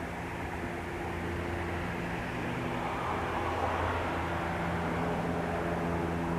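SEPTA Silverliner V electric commuter train running as it pulls out of the station: a steady rumble with several held electric hum tones that shift as it goes, and a swell of running noise about halfway through.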